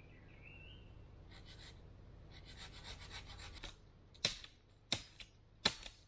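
Scraping and rubbing as a man works at a wooden pole by hand, in two short stretches, then three sharp knocks about two-thirds of a second apart near the end.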